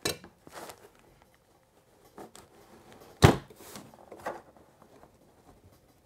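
Handling noises of a copper tube and stuck neodymium magnets on a tabletop: light taps and scrapes, with one sharp clack about three seconds in and a smaller knock a second later.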